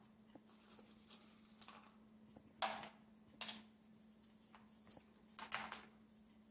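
Crispy fried onions being crushed by hand and scattered onto raw chicken in a foil tray: three short, crisp rustles, about two and a half, three and a half and five and a half seconds in, over a faint steady hum.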